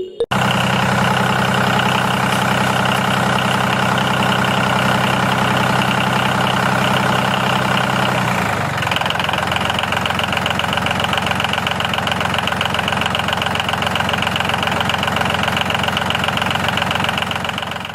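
Engine idling steadily with an even, rhythmic pulse; its note shifts about halfway through.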